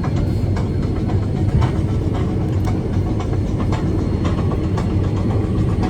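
Cabin noise of a Boeing 757-200 on the ground: a steady low rumble with scattered light knocks and rattles.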